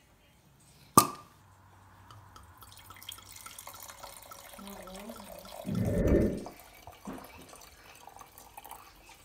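Red wine poured from a bottle into a stemmed wine glass: a light trickling pour with a louder gush about six seconds in. A single sharp click comes about a second in, before the pour.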